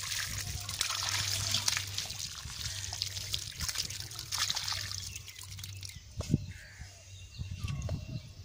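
Muddy water pouring and trickling out of an upturned clay pot into a shallow puddle; the pouring hiss thins out after about five seconds, followed by a few small splashes.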